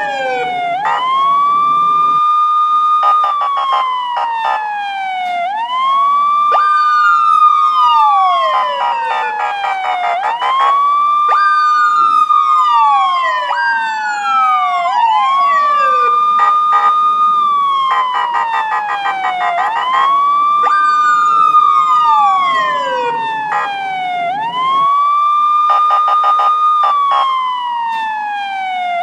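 Police siren wailing, rising quickly, holding, then sliding down in pitch about every four to five seconds. A second siren tone overlaps out of step, with bursts of rapid pulsing between the wails.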